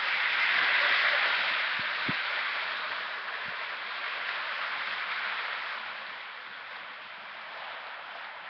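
Williams S2 steam-turbine model locomotive and its train of freight cars running on three-rail O-gauge track: a steady rolling rumble and hiss of wheels and motor, loudest about a second in and then slowly fading.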